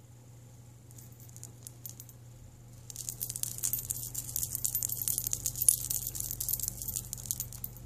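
Stacked thin metal bangle bracelets with dangling charms jingling and clinking against each other as the wrist is shaken close to the microphone. A few light clinks come first, then continuous jangling from about three seconds in.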